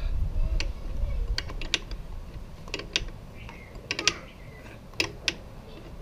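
Open-end wrench clicking on the hex of a new rear brake light switch as it is tightened into the brake line fitting: irregular light metallic clicks, some in quick pairs.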